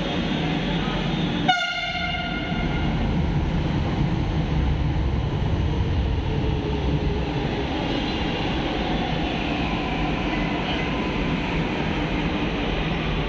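Delhi Metro Yellow Line train giving a short horn toot about a second and a half in, then rumbling steadily as it moves along the platform, with a faint changing motor whine over the rumble.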